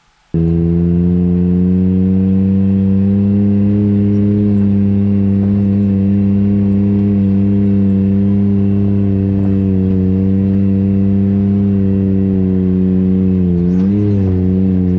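Off-road vehicle's engine running steadily while driving along a dirt trail, starting abruptly just after the beginning, with a brief dip and rise in pitch near the end as the throttle changes.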